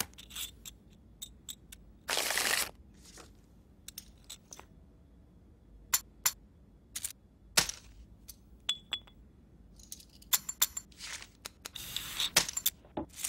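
Poker chips clicking as they are handled: scattered sharp clicks, with a few longer rattling runs.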